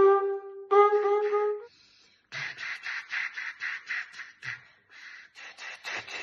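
Flugelhorn playing held notes for about a second and a half, then stopping. About two seconds in, breathy, unpitched puffs of air begin, about four a second, blown through an Aurus 9WA air-support trainer fitted to the mouthpiece.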